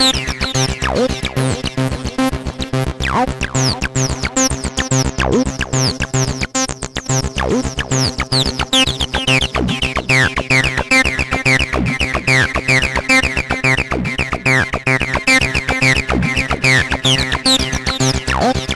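Distorted TB-303-style acid bass line: a fast, even run of synth notes with sweeping, squelchy overtones over a steady low beat, gritty from several stacked instances of a one-knob acid distortion plugin.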